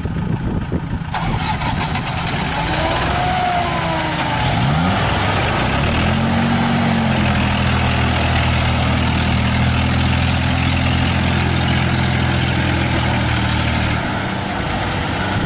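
Engines of a tracked rice cart and a Kubota combine harvester running hard under load as the cart tows the combine out of deep mud. The engines rev up a few seconds in, hold a steady pitch, then ease off slightly near the end.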